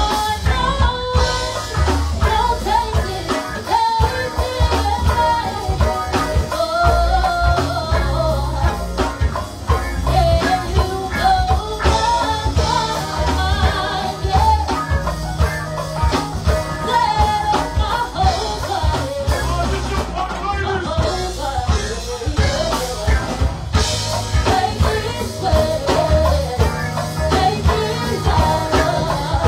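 Live go-go band playing: several vocalists singing over a drum kit keeping a steady beat.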